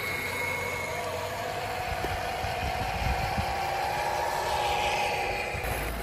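1/10-scale RC crawlers' electric motors and geared drivetrains whining as they drive through a shallow creek, with a few low knocks partway through.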